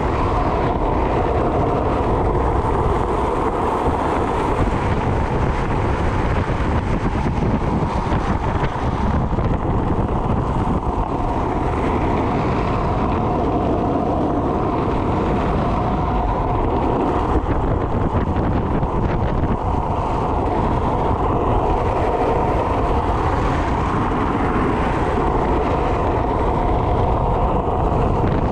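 Freebord wheels rolling fast over rough asphalt during a downhill run, a steady loud rolling rumble with wind on the microphone.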